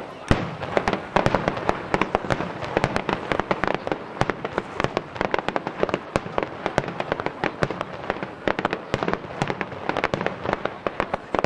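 Starmine fireworks barrage: aerial shells bursting in rapid succession, a dense run of sharp bangs several a second, set off by a sudden loud bang right at the start.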